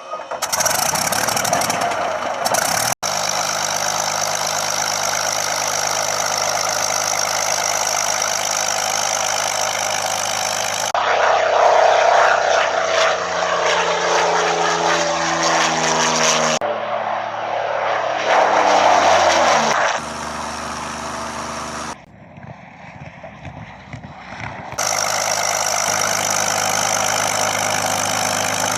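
P-40 Warhawk's V12 piston engine running with a steady, even engine note, in several short clips cut together. Partway through, the pitch drops steeply, and a quieter stretch follows before the steady engine note returns.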